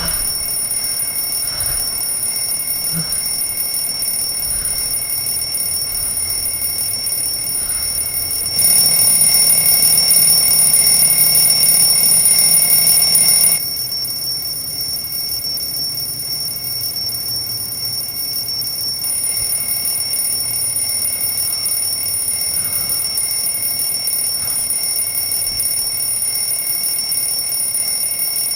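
Alarm clock ringing without a break, a steady high-pitched ring that gets louder for about five seconds a third of the way in.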